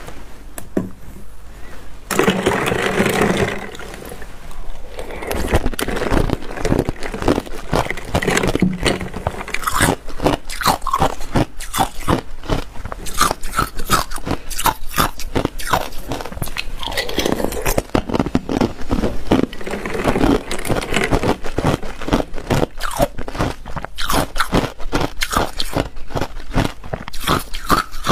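Ice cubes bitten and chewed close to a clip-on microphone: a dense run of sharp cracks and crunches starting about five seconds in, after a few seconds of softer noise.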